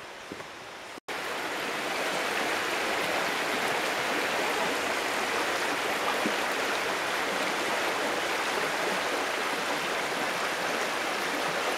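A shallow, rocky creek running fast: a steady, full rush of water over stones that starts abruptly about a second in.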